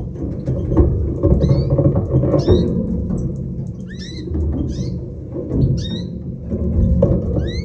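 Caged finches calling: short, high chirps that sweep upward, one every half second or so, over a loud, low background rumble.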